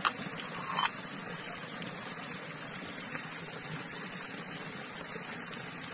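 Steady rush of a small forest stream, with two short clinks in the first second from a steel bowl being rinsed in the water.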